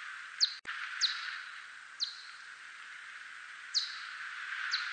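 Calls of a 대륙쇠큰수염박쥐 (a whiskered myotis bat): five short chirps, each sweeping quickly downward in pitch, at uneven intervals over a steady hiss. A single sharp click comes about half a second in.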